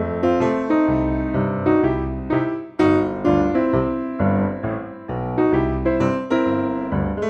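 Background piano music, with a steady stream of struck notes and chords.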